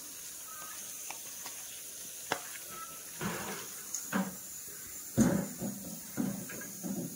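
Hands mashing and mixing moist gundruk (fermented leafy greens) with chopped mango, chillies, tomato and onion for a pickle, heard as irregular wet bursts about once a second from about three seconds in.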